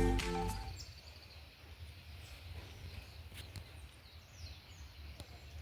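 Background music fading out within the first second. It gives way to faint outdoor ambience: a low steady rumble with a few faint, short bird chirps.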